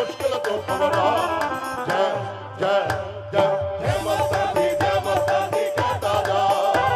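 A male singer performing a Sufi devotional song live, with a steady drum beat and instrumental backing. The music thins briefly about two and a half seconds in, then comes back in full.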